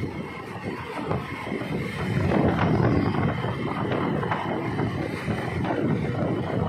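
Wind rushing over the microphone of a rider moving along a road, mixed with traffic noise; the rush swells about two seconds in.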